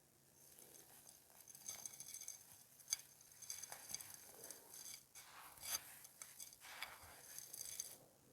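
Dry, dusty clay crumbling and crunching in short crackling bursts, with a few sharp snaps. The sharpest snap comes about three seconds in. The crackling stops just before the end.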